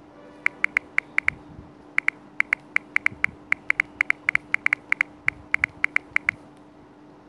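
Rapid, irregular clicks, about thirty in six seconds, from repeated taps on an LG G3 smartphone's touchscreen as the Android 6.0 Marshmallow logo is tapped over and over. A steady low hum runs underneath.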